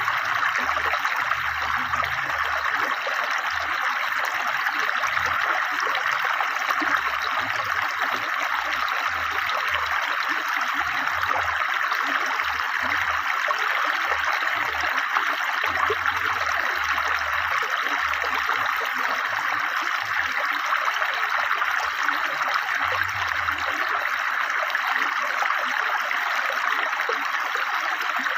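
Fast, clear river water flowing over its bed, a steady unbroken rush of water.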